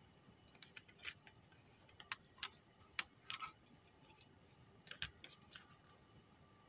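Faint, scattered light clicks and taps from a screwdriver and small plastic parts being handled as a car stereo's front panel is taken apart, its circuit board being lifted out of the plastic housing.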